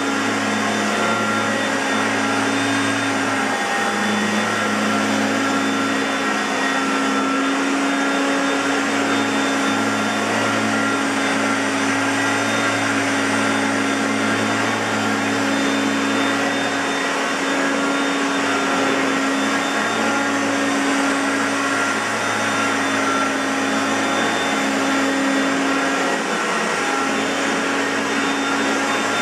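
Hoover Concept Two Electronic upright vacuum cleaner running steadily: continuous motor noise with a low hum whose pitch wavers slightly now and then.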